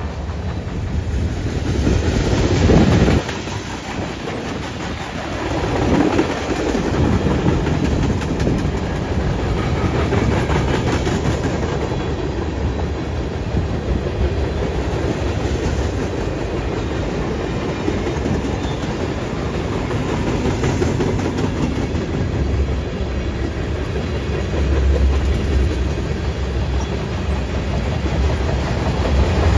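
Freight cars of a mixed freight train rolling past, a steady rumble with the clickety-clack of their wheels over the rail joints. It swells a little about two and six seconds in and again near the end.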